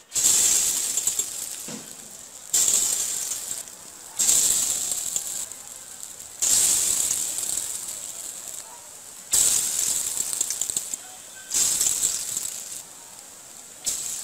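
Raw-banana kofta balls dropped one by one into hot oil in a steel wok, each setting off a sudden loud sizzle that dies down over a second or two; seven drops, about every two to three seconds.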